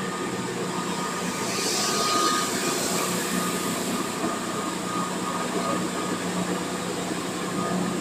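Gram flour (besan) mill machinery running steadily: a continuous mechanical drone with a held hum and a high whine, and a rush of hiss that swells about two seconds in and fades by four.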